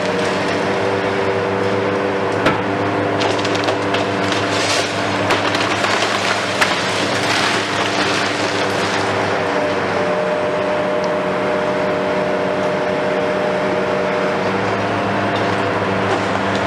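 Hitachi KMC 520 BTV long-reach demolition excavator's diesel engine and hydraulics running steadily with a constant hum. From about two and a half to nine seconds in, masonry cracks and debris clatters down as the attachment breaks into the building.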